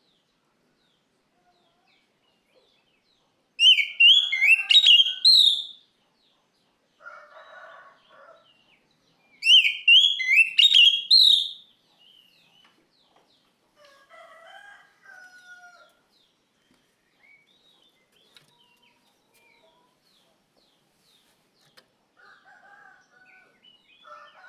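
Oriental magpie-robin singing two loud, roughly two-second phrases of quick rising whistled notes, about four seconds in and again about ten seconds in. Fainter, lower calls come in between.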